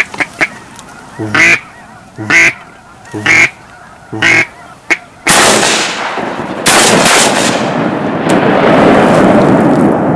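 Duck quacks: a quick run of short quacks, then four loud quacks about a second apart. From about five seconds in, a loud rushing noise takes over.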